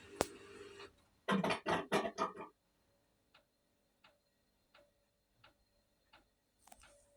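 Hotpoint Aquarius washing machine: its running hum stops with a sharp click, followed by a quick run of loud clunks. It then settles into faint, regular ticking about every 0.7 seconds, with a brief hiss near the end.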